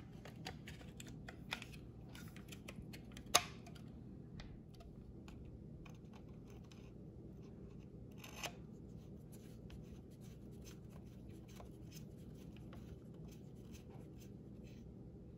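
Faint clicks and scrapes of a black plastic electronics housing being fitted back onto a Ferrari 360 F1 reverse lever assembly, and of a small Phillips screwdriver turning a tiny screw in it. A single sharp click about three seconds in is the loudest sound.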